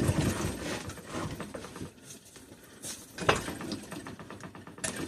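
Metal clunks and rattles of an opposed-twin engine block and its parts being handled on a workbench. There is a clatter in the first couple of seconds, then a few sharp knocks, the loudest a little past the middle.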